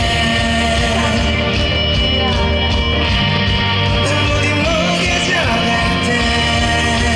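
A male vocalist singing over instrumental accompaniment in a live concert performance, the voice gliding between held notes.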